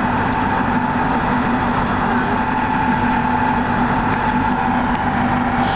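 Steady road and engine noise inside a moving car's cabin at road speed, an even rushing with a constant low hum.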